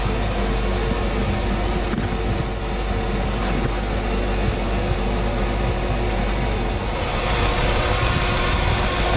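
Vacuum cleaner motor running steadily with a hum. It grows a little louder and brighter about seven seconds in.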